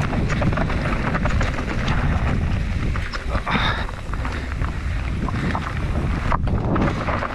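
Wind rushing over the microphone as an enduro mountain bike rides a trail at speed, with a steady run of sharp clicks and rattles from the tyres on roots and stones and the bike's chain and frame.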